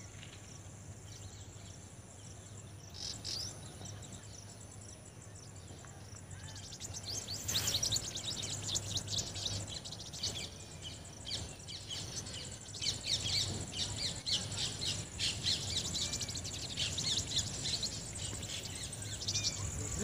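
Many small birds chirping rapidly and overlapping in a dense, high-pitched chorus, which swells and grows louder about seven seconds in.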